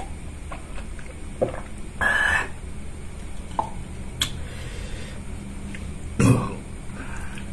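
Close-miked mukbang eating sounds: a sip from a plastic cup, then chewing and small mouth clicks, with a louder noisy burst about two seconds in and the loudest one a little after six seconds in.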